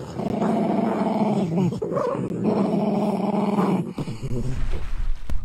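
Dachshund growling: two long, drawn-out growls with a shorter one between them. A low rumble comes in near the end.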